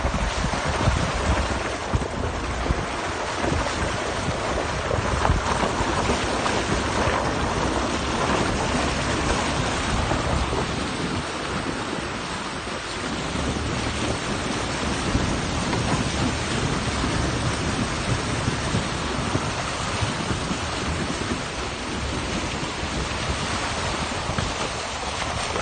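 Ford F-150 pickup on Nitto Ridge Grappler all-terrain tyres driving through a flooded road, the tyres churning and throwing up water in a steady hissing splash. Wind buffets the microphone as a low rumble underneath.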